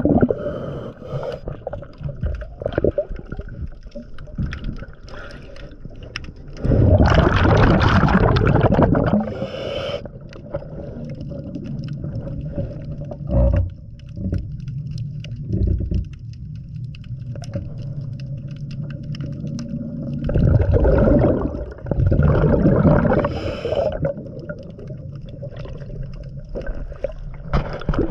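Scuba diver breathing underwater through a regulator. Loud rushes of exhaled bubbles come several times, the longest about seven seconds in, over a steady muffled underwater background.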